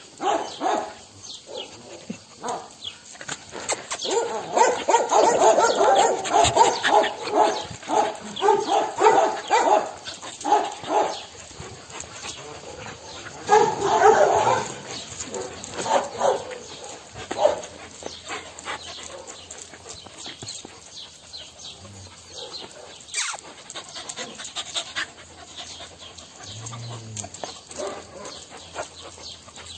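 Several dogs whining and yelping in repeated pitched calls, busiest through the first third and again briefly about halfway, then fewer, with scattered clicks and scuffs.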